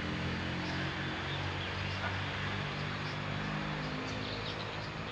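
Outdoor background: a distant engine's steady low hum, with faint chirping of birds or insects over a light hiss.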